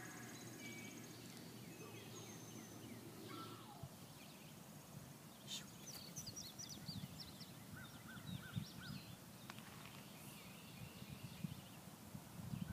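Faint outdoor ambience: scattered distant bird calls, short high chirps and a run of four repeated notes about two-thirds of the way through, over a low uneven rumble.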